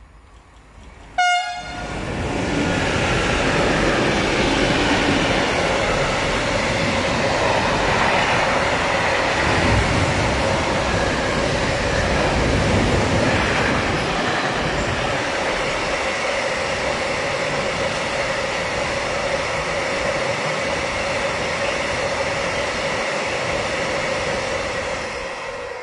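Electric locomotive of a freight train sounding a short horn blast about a second in, then the train of tank wagons and flat wagons rolling past close by, with a steady tone under the rolling noise. The noise drops away near the end as the last wagon passes.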